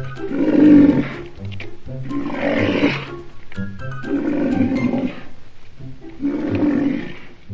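Rhinoceros calling: four loud, drawn-out calls about two seconds apart, over light background music.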